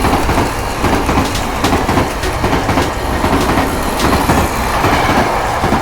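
Battery-powered Plarail toy train running on plastic track: a steady motor whir under a dense rattle and clatter of wheels and couplings over the track joints.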